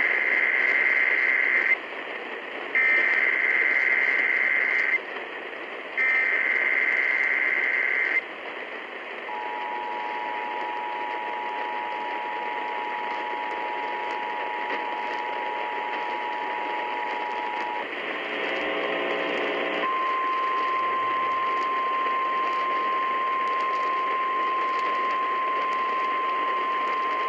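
Emergency Alert System activation heard over AM radio static. It opens with three short bursts of the SAME header's warbling digital data tones. Next comes the two-tone attention signal, held for about eight seconds, then a brief buzzy burst, then a single steady tone.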